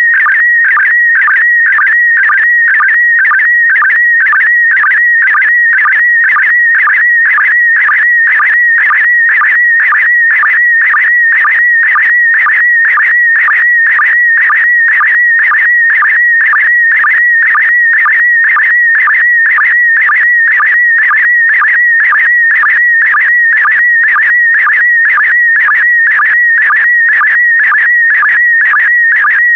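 PD120 slow-scan television (SSTV) signal: a loud, steady warbling tone around 2 kHz carrying the picture data of a colour photo, broken by short regular sync pulses about twice a second as the image is sent line by line.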